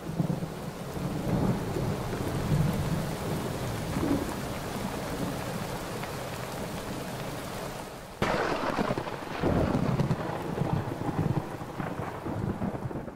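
Thunderstorm: steady rain with rolling thunder rumbling low underneath, and a sudden louder burst of thunder about eight seconds in.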